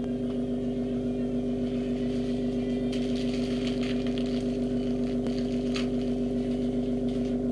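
A steady low mechanical hum holding two constant tones. Faint crackling rustles come over it for a few seconds in the middle.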